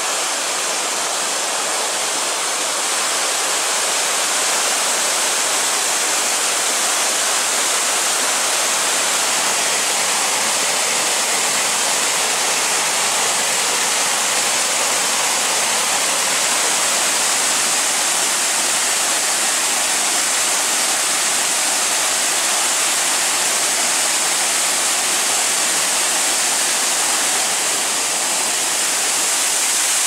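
Waterfall: a steady, even rush of falling water, mostly hiss with little low rumble.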